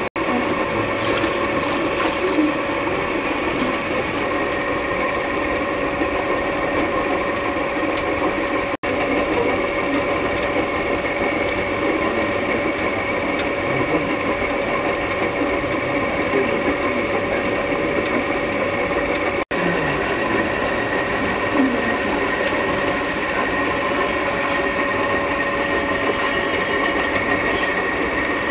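Electric dough-kneading machine running steadily as it mixes wheat flour and water into dough: a constant motor hum with a steady whine.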